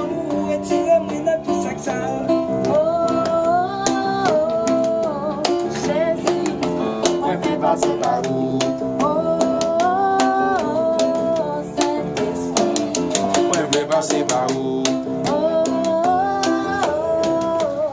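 Music with quick percussive ticks under full chords, and a melodic phrase that climbs in steps and falls back, repeating about every six seconds.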